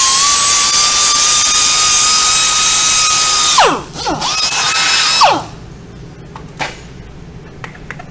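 Air-powered grinder with a small abrasive disc cleaning rust off a wheel hub: a steady high whine that winds down about three and a half seconds in, then a second shorter run of about a second that also spins down. A few light clicks follow.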